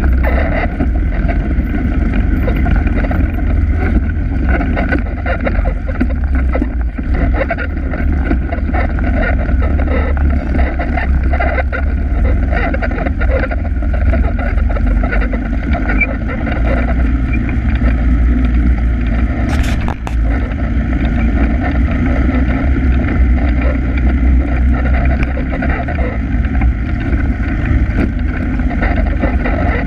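Polaris ATV engine running steadily under way on a dirt trail, with one brief sharp knock about twenty seconds in.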